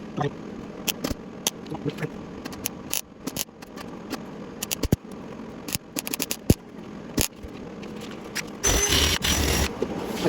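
Welder arc on thin truck sheet metal at a low heat setting, crackling in short, irregular pops as small rust holes are filled, with a longer, steadier burst near the end.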